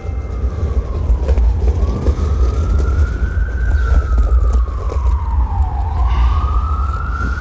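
Emergency vehicle siren wailing, its pitch slowly falling and rising in long sweeps, over a steady low rumble.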